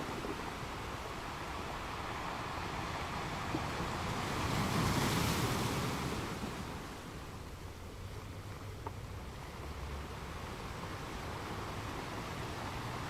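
Ocean waves washing onto a beach: steady surf, with one wave breaking and rushing up loudest about five seconds in before easing back.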